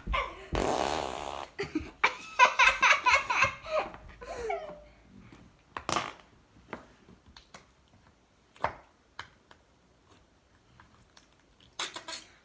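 A fart noise made by pushing slime into its container: a buzzy squelch lasting about a second near the start, followed by children laughing. After that, a few short sharp clicks and squishes.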